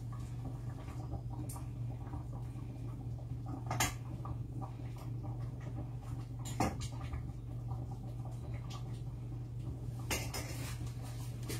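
A few sharp clinks of a metal utensil in a steel cooking pot as the boiling yam is tested, spaced several seconds apart over a steady low hum.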